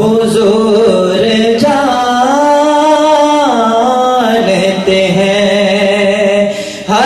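A man singing a naat, an Urdu devotional song in praise of the Prophet Muhammad, solo and without instruments. He draws out long held notes that slide up and down in one continuous phrase, and breathes briefly near the end.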